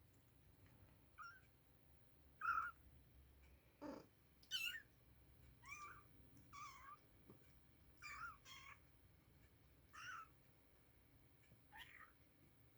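Oriental kittens mewing: about ten short, high calls, each well under half a second, spaced a second or so apart.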